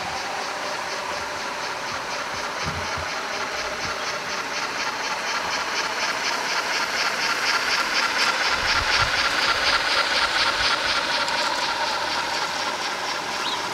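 OO gauge model steam locomotive and its mineral wagons running along garden railway track: a steady hiss with a quick, even rhythmic beat, growing louder as the train draws close about eight to ten seconds in.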